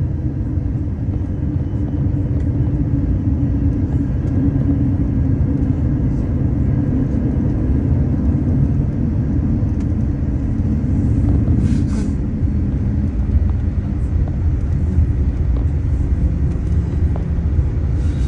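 Steady low rumble inside the cabin of a Boeing 787-9 taxiing after landing: its GEnx-1B engines at low thrust and the airliner rolling on the taxiway. A brief hiss comes about two-thirds of the way through.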